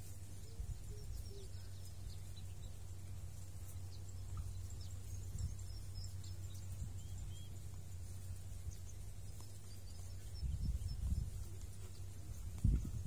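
Outdoor ambience: a steady low rumble with faint, scattered bird chirps over it; the rumble swells in short gusts near the end.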